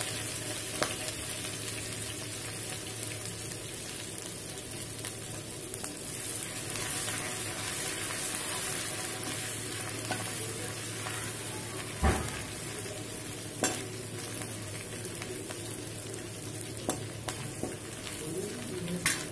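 Green chillies and ginger sizzling as they fry in hot ghee with cumin in a metal kadhai, stirred with a metal ladle. A few sharp knocks of the ladle against the pan, the loudest about twelve seconds in.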